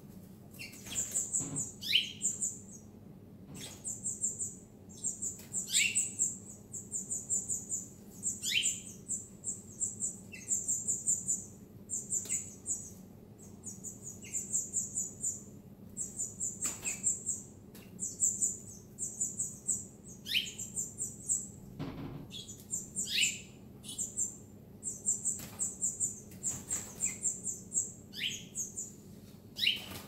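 Caged canaries and finches chirping: short bursts of rapid high chirps every second or so, mixed with calls that slide downward. A single knock about two-thirds of the way through.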